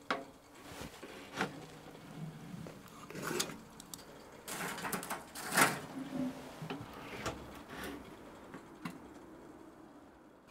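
Split firewood knocking and clattering as pieces are picked up and handled, in a series of scattered knocks and scrapes with the loudest cluster around the middle.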